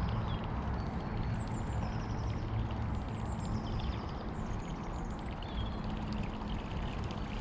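Small birds chirping now and then over a steady low rumble.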